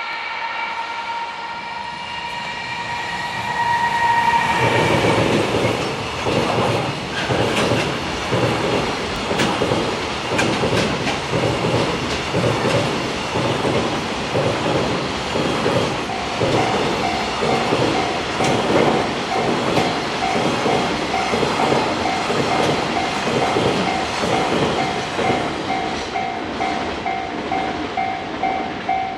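JR Freight EF210 electric locomotive sounding its horn for about four seconds as it arrives, then a long freight train passing with a steady rhythmic clatter of wheels over the rail joints. From about halfway through, the level crossing's warning bell is heard ringing in pulses under the train noise.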